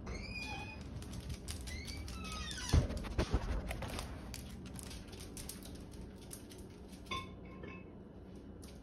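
Dog and cat claws clicking and pattering across a hardwood floor, with a few heavy thumps about three seconds in as the back door is pushed shut. A few high, gliding squeaks come near the start.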